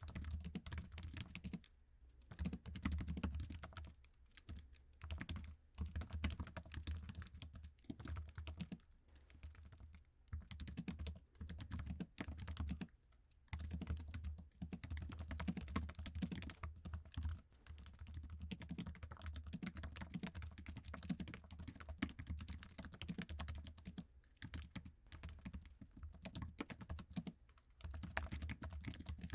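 Typing on an iMac's standard Apple keyboard: dense runs of key clicks broken by brief pauses every few seconds.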